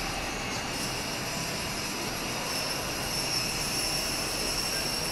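Steady background din of a large shopping-mall hall: an even roar with a few faint high-pitched whines running through it.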